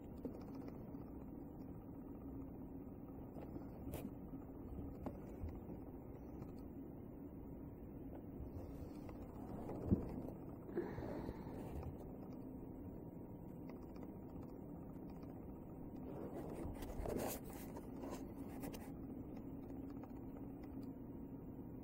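Small dog pawing and scrabbling at a ball under a wooden table on carpet: faint scrapes and scuffles over a low steady room hum, with a short knock about ten seconds in and a run of scraping near the end.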